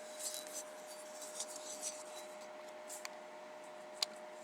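Faint rubbing and scraping of the metal parts of a disassembled outer CV joint being handled, with one sharp click about four seconds in. A faint steady hum runs underneath.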